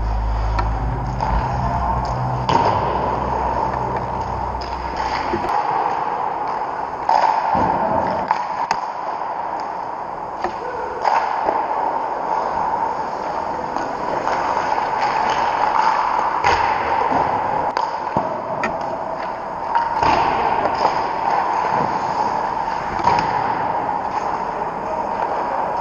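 Ice-rink sounds: skate blades scraping on the ice, with a sharp clack from a puck or stick every few seconds, over a steady hum.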